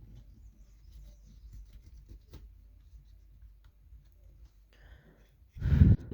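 Faint scratching and small clicks of tools handling a mobile phone's circuit board, then a short, loud thump near the end.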